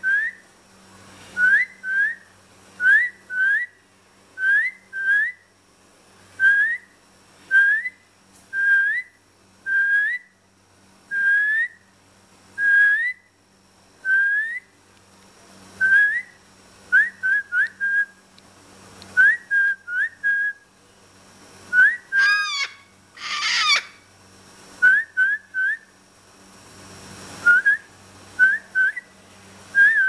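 White cockatoo whistling short rising notes over and over, about one a second, with a louder, harsher screech about three-quarters of the way through.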